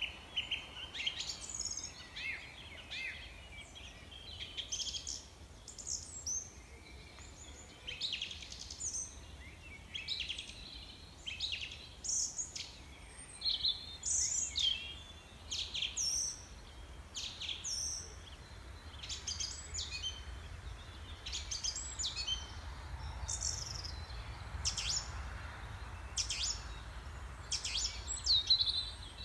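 Songbirds chirping and singing: many short, high chirps and quick falling notes, several a second at times, over a faint low rumble.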